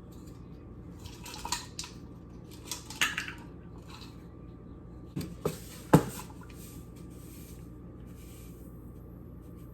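Measuring spoon and bowl clinking and scraping as salt is measured out: a few light knocks and scrapes, the sharpest about six seconds in.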